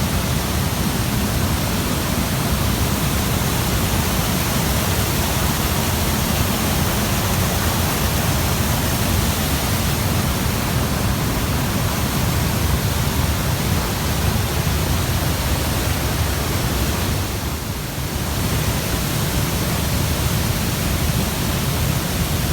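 Large waterfall's water rushing steadily, a loud, even noise with a brief dip late on.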